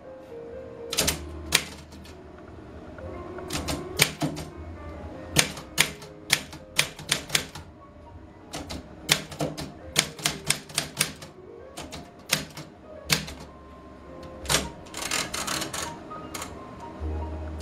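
Portable manual typewriter being typed on: sharp key clacks in quick, irregular runs with short pauses between them, over sustained tones of background music.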